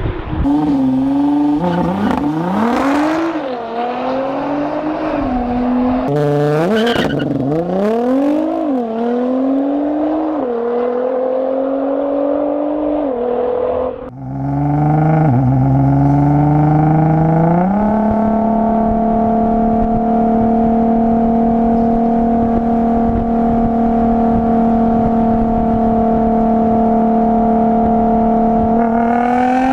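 Nissan GT-R engine under hard acceleration, its revs climbing and dropping again and again with quick gear changes. About fourteen seconds in the sound cuts off briefly, then the engine climbs to a steady high note held for about ten seconds before rising again near the end.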